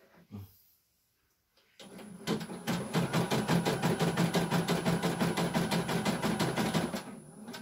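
CNY E900 computerised embroidery machine starting about two seconds in and stitching at a fast, even rate of several needle strokes a second over a steady motor hum, stopping shortly before the end. A few light handling knocks come before it starts.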